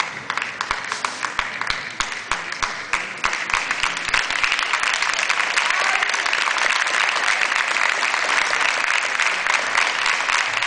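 Spectators applauding in a sports hall: separate claps several a second at first, swelling after about three seconds into dense, steady applause.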